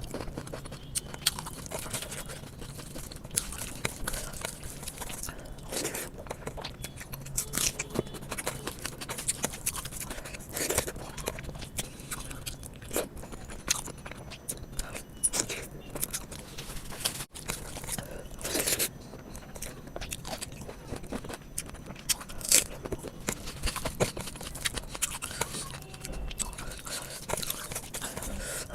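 Close-up eating sounds: irregular chewing and biting with crisp, crunchy clicks, as rice and chicken curry are eaten.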